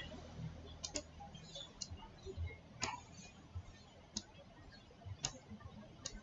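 Computer mouse clicking, a handful of faint, sharp clicks at irregular intervals while an image is dragged and resized on screen.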